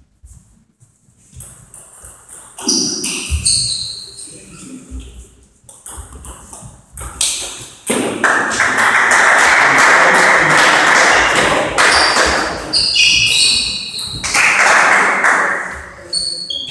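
Table tennis rally: the celluloid ball clicks sharply off bats and the table, with short high squeaks of sports shoes on the hall floor. About eight seconds in, a few seconds of loud crowd noise break out, and a shorter burst comes near the end.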